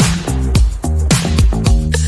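Upbeat background music with a steady drum beat and bass line, in a disco-funk style.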